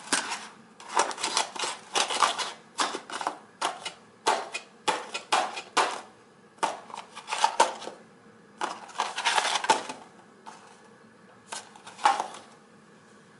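Cardboard tea box being handled and its flaps pushed shut: a run of short crinkles and taps, with a pause about two-thirds of the way through. The lid flaps won't stay closed.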